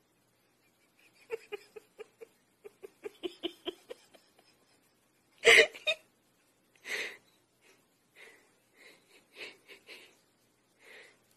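Wheezing laughter from the person filming: a run of short, quick breathless gasps, then a louder burst about five and a half seconds in and softer wheezes after it.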